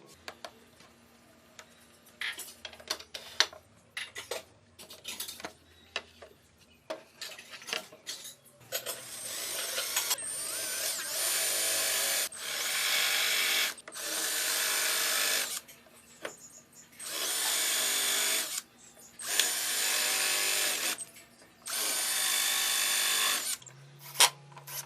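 Power tool running in six short bursts of about one and a half to two seconds each, with clicks and knocks of handling wood and tools before it.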